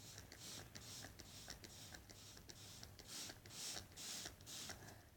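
Faint handling sounds as borax solution is added to a slime mixture: soft, irregular swishes with small clicks in between.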